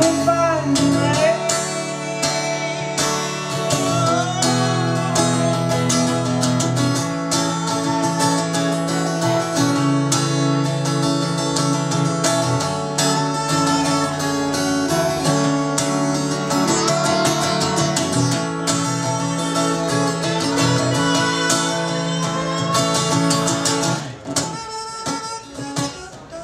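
Steel-string acoustic guitar strummed in a steady rhythm while a man sings over it, a live solo folk song. About two seconds before the end the strumming drops away and the sound falls much quieter.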